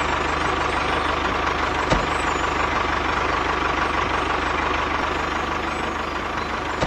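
Steady mechanical running noise like an idling engine, with a faint steady whine and a single click about two seconds in.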